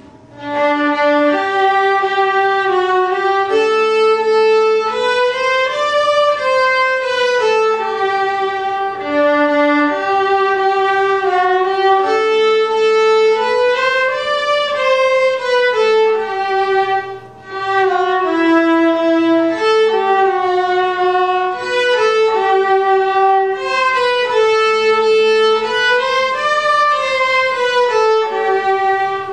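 Viola duet: two bowed string instruments, one of them a viola, playing a stepwise melody over an occasional lower held note. There is a brief break about seventeen seconds in.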